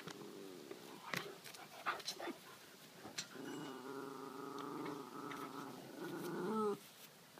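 A pet animal growling in one long, drawn-out growl of about three seconds, starting about three and a half seconds in and wavering at its end. A few short knocks or scuffs come before it.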